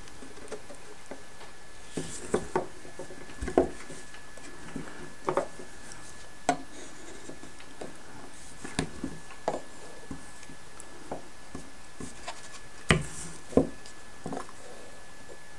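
Thin plywood model-boat kit parts being handled and fitted together on a table: scattered light wooden clicks and taps at irregular intervals, about a dozen, with the two sharpest about a second apart near the end.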